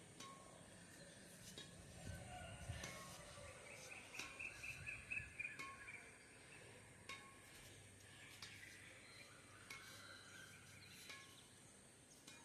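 Fingertip taps on the strings of a Yonex Nanoflare Speed 7 badminton racket strung at 28 lbs: faint, sharp pings spaced a second or so apart. Birds chirp in the background, loudest in the middle.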